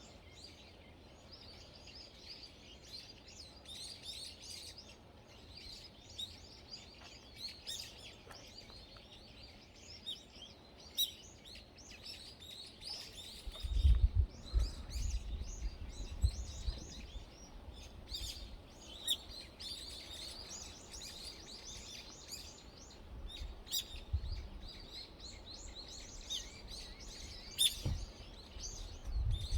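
Wild birds chirping and singing in many short, quick calls. Low rumbling comes in about halfway through and again near the end.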